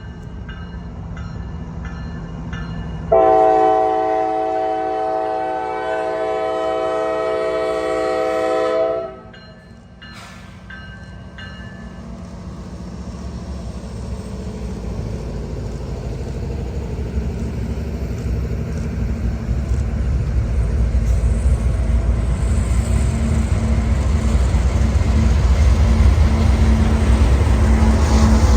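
A CSX freight train's lead diesel locomotive sounds one long blast on its multi-chime air horn, about six seconds long. The locomotives' rumble then grows steadily louder as the train approaches.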